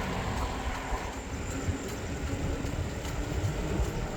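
Steady low rumble of a vehicle in motion, with a faint engine hum.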